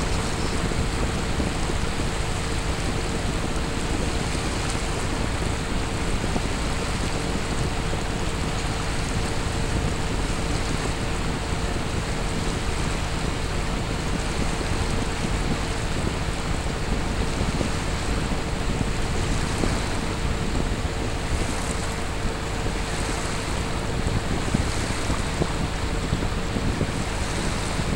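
Steady rush of wind and moving sea water, with a constant hum underneath.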